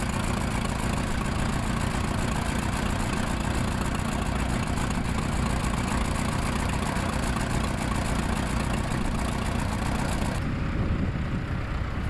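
Tractor engine running steadily. A hiss over it cuts off suddenly about ten seconds in.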